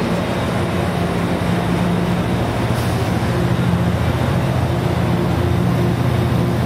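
Amtrak double-deck passenger train pulling slowly out past the platform. Its cars roll by with a steady low drone from the diesel locomotive.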